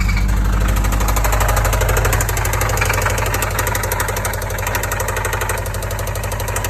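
Subaru WRX engine running at idle with a rapid, even knocking: the sound of a blown engine.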